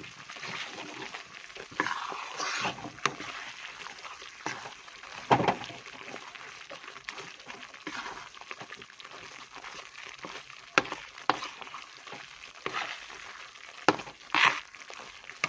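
Besan (gram flour) roasting in ghee in a kadhai, sizzling faintly as a spoon stirs it round the pan without pause so it doesn't stick and scorch. The spoon scrapes and knocks against the pan now and then, about half a dozen sharper strokes.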